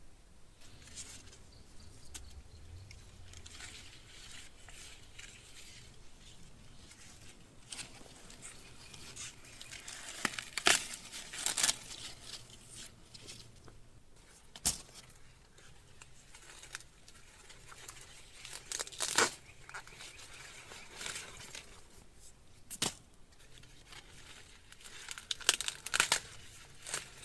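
Corn husks and leaves rustling and tearing as ears of corn are handled, with several sharp snaps among the rustling.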